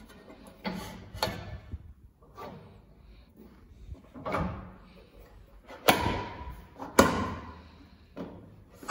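Metal clunks and clicks from a planer thicknesser's guard bar and fence fittings being moved and locked by hand. Softer knocks come first, then two sharp metal knocks about a second apart near the end, the first ringing briefly.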